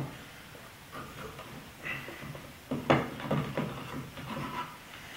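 Homemade wooden bar clamp being worked by hand: a few light wooden knocks and clicks about three seconds in, with smaller ones before, as the sliding jaw and screw handle are moved, and some faint rubbing.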